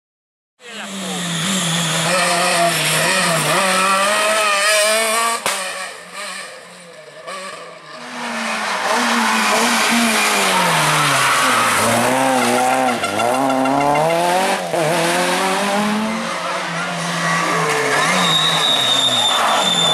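Rally car engine driven flat out, rising in pitch and dropping at each gear change, with a lift-off and brief quieter stretch about six seconds in before it pulls hard again.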